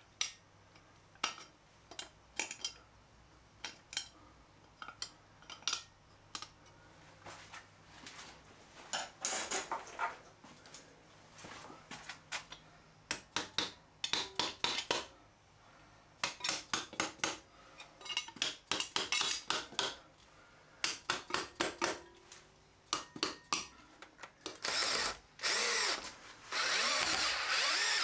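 Cordless drill-driver running in repeated short bursts as it drives screws through a slotted metal wall rail, with a longer steady run near the end. Scattered clicks and knocks from handling the rail and screws come first.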